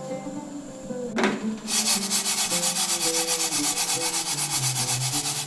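Sesame seeds swishing and rasping in a nonstick frying pan as the pan is shaken back and forth on the burner while they dry-toast. A single knock comes about a second in, then the shaking starts in a fast, even rhythm of about five strokes a second.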